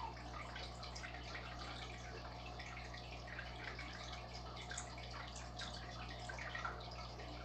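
Aquarium water trickling and bubbling, a faint, fine patter of small drips and splashes over a low steady hum.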